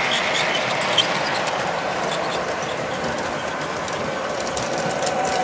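Model freight train running on the layout's track: a steady whirring rumble of wheels and motor, with scattered light clicks and one sharper click about a second in.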